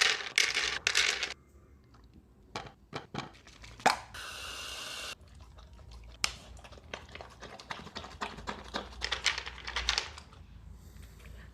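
A dog eating: a run of small wet clicks and crinkles from its mouth, with a brief rustle about four seconds in.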